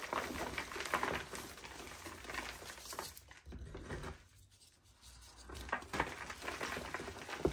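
Dry reformed chalk chunks crunching and crumbling as they are squeezed apart by hand, with a fine, crackly patter of breaking pieces and falling powder. The crumbling eases off for a moment around the middle, then starts up again.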